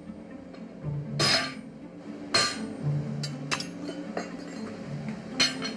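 Blacksmith's hand hammer striking hot steel on an anvil: about seven blows at uneven intervals, three of them heavy and the rest lighter, as the bar is drawn out and tapered.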